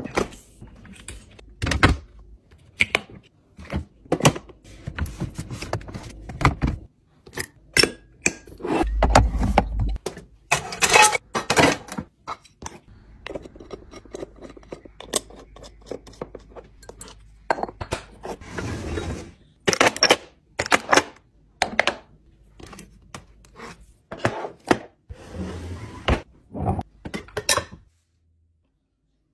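Glass food containers and glass spice jars being handled and set down on kitchen counters: an irregular run of sharp clicks, taps and knocks.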